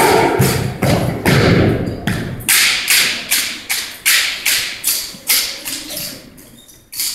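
Exhibition drill team's rifles and boots striking the floor: a run of sharp, echoing thuds and slaps, about two a second, in unison.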